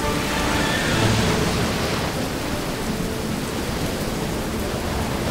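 Recorded hurricane storm: heavy rain hissing with a deep rumble underneath, the rain swelling louder about a second in.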